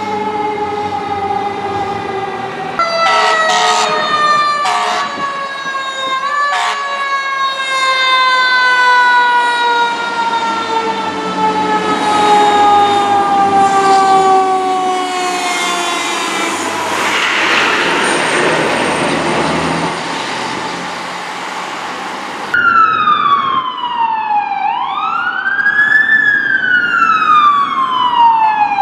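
Fire apparatus sirens: a long siren tone sliding slowly down in pitch, cut by several short horn blasts a few seconds in. About 22 seconds in it changes abruptly to an electronic siren wailing up and down in cycles of about three and a half seconds.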